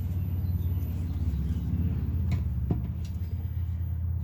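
A steady low hum, with two sharp clicks a little past halfway, typical of metal brake parts being handled.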